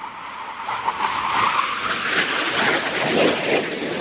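Jet aircraft running loud, swelling up over the first second or so as it comes closer, then staying loud.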